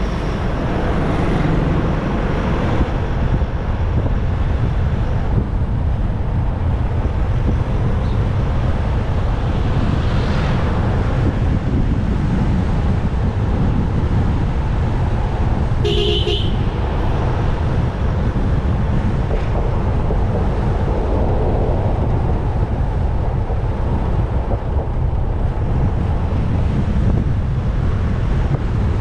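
Steady road and wind noise from a moving motorcycle, the wind buffeting the microphone, with one short horn toot a little past halfway.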